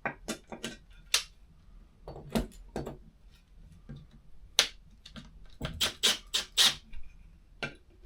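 Angled metal wall brackets and screws being handled and hooked onto screws in the wall: about a dozen light metallic clinks and taps at uneven intervals, with a few squeaks.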